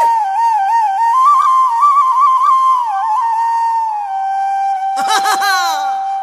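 Flute playing an ornamented melody with quick trills, then settling on one long held note about four seconds in. Around five seconds a short flourish of falling, sliding tones sounds over the held note.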